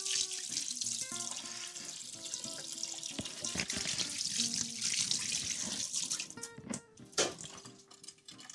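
Water running steadily with a hiss, like a tap, under background music. About six and a half seconds in the hiss stops, and a few sharp clicks follow as a metal ladle knocks against a stainless steel pot.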